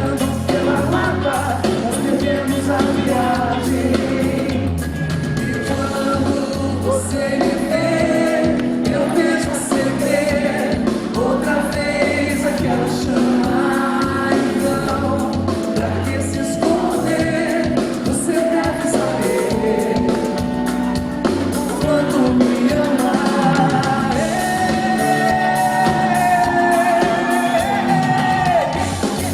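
Brazilian pop song performed live: a woman sings over a full band with a steady bass, holding one long note near the end.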